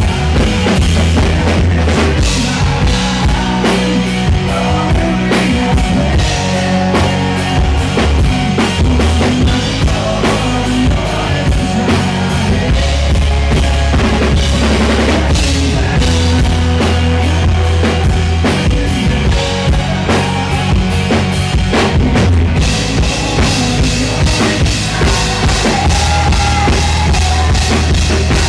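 Live rock band playing, with a male lead vocalist singing over a steady drum kit beat, bass and guitars.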